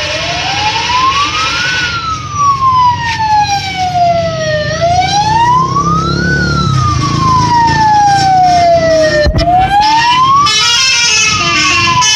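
Electronic wail siren, its pitch sliding slowly up and down about every four and a half seconds. Higher horn tones slide and step over it, with a run of quick stepped notes near the end.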